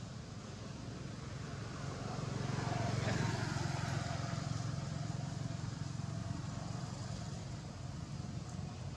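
A motor vehicle passing by over a steady low rumble, loudest about three seconds in, its pitch falling as it goes by and then fading away.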